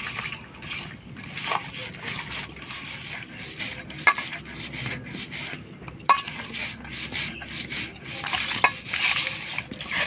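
Hands rubbing and turning small whole puti fish coated in turmeric and salt in a steel bowl: a run of wet rubbing strokes with a few sharp clicks.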